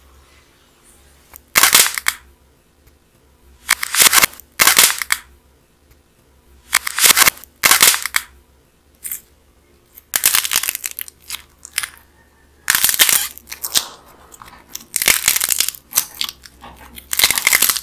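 Hardened outer shell of a bread-shaped clay model cracking and crunching as hands squeeze and twist it: about a dozen sharp crackling bursts, each under a second, with short quiet gaps between.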